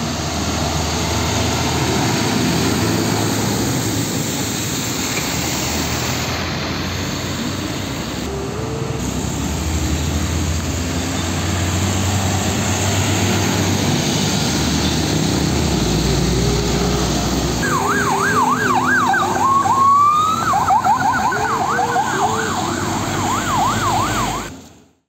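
Heavy traffic on a wet road: Hino Ranger diesel trucks and motorcycles passing, engines running over a steady road noise. From about 18 s in, a siren yelps in fast up-and-down sweeps, with one rising wail briefly in the middle, until the sound cuts off near the end.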